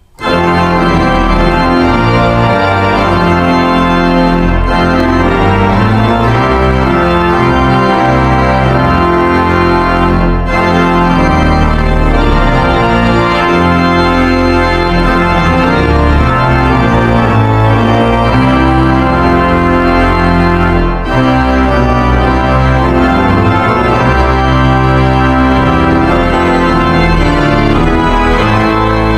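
Organ music playing slow, sustained chords, with two brief dips in level about ten and twenty-one seconds in.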